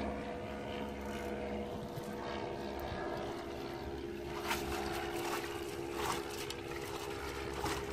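Boat engine running steadily, with a few splashes of a landing net being dipped into the water about halfway through.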